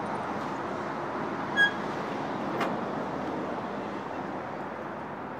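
Steady vehicle noise with a short electronic beep about one and a half seconds in.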